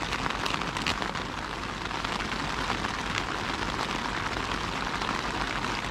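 Steady heavy rain falling on a tent's flysheet, heard from inside the tent.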